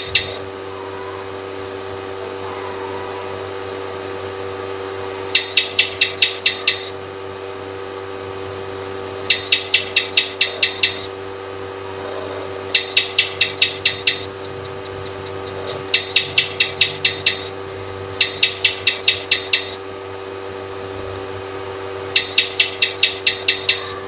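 A gecko chirping in short rapid series of about seven sharp chirps, repeated every three to four seconds over a steady background hum.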